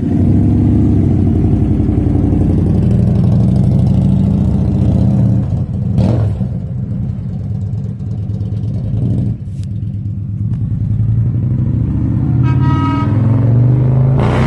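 Victory Cross Country motorcycle's V-twin engine idling steadily, with a short burst of noise about six seconds in. Near the end the bike's air horn sounds one short blast, about half a second long.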